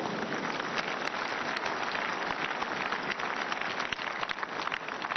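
Large congregation applauding: a dense, even patter of many hands clapping.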